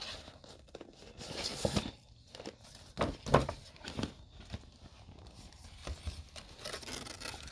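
Gift wrapping being torn and crinkled by hand in irregular bursts as a present is unwrapped.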